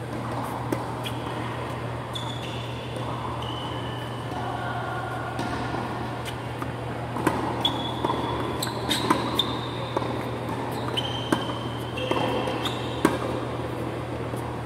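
Tennis rally on an indoor hard court: sharp pops of racket strings hitting the ball and ball bounces, thickest in the second half, with brief high squeaks of shoes on the court surface. A steady low hum from the hall's ventilation fans runs underneath.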